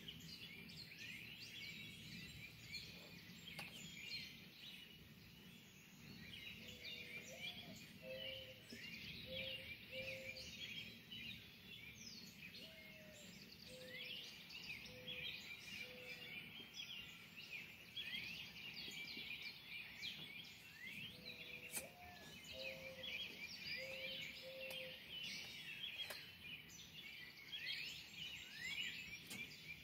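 Dawn chorus: many songbirds chirping and singing at once, with a lower, slower call of several notes heard three times.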